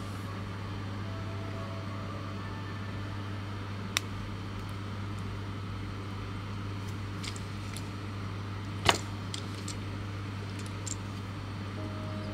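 Sharp plastic clicks from an action figure being handled and posed: one click about four seconds in, then a run of smaller clicks with a louder one near the middle. A steady low hum lies underneath.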